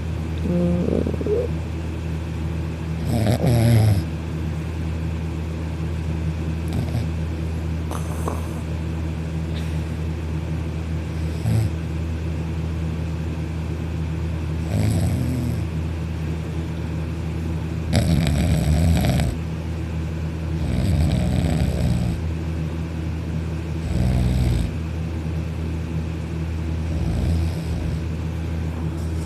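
Loud snoring from a deeply sleeping man: a steady low rumble with louder, rougher breaths every few seconds.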